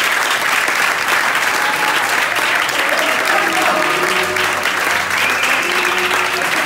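Audience applauding steadily, a dense run of hand claps.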